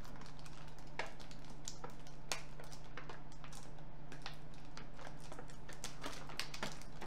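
Clear plastic blister packaging of a figure crinkling and clicking as it is handled, in scattered irregular sharp crackles over a steady low hum.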